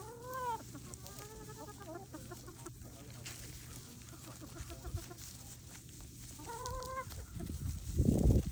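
Chickens clucking and calling: a loud arched call at the start, a run of softer calls after it, and another call near the end. A loud low rumbling noise comes in just before the end.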